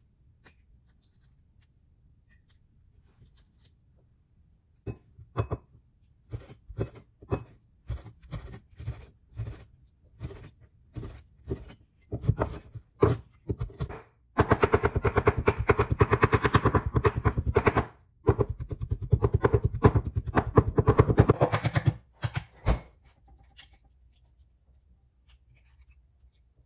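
Chef's knife chopping peeled shrimp on a wooden cutting board to mince it. Separate chops come about five seconds in, then turn into fast, even chopping of many strokes a second with one short break, stopping a few seconds before the end.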